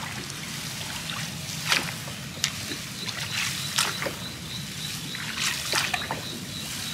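Water trickling and dripping, with a few short splashes about two, four and nearly six seconds in, as a baited fishing longline is lifted from the canal and checked.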